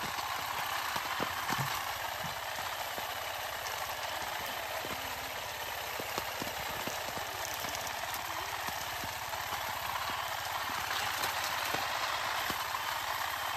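Battery-powered electric olive harvester on a pole running steadily while its head thrashes through the olive branches, with many scattered sharp clicks throughout.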